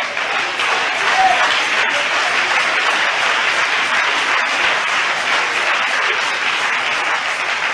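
A church congregation applauding steadily, the clapping swelling up at the start and holding for several seconds, with a voice briefly calling out about a second in.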